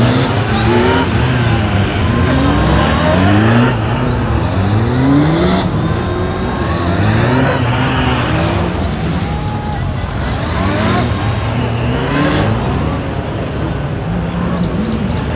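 Police motorcycle engine revving up and easing off again and again, its pitch rising and falling with each burst of throttle as it accelerates out of and slows into tight turns.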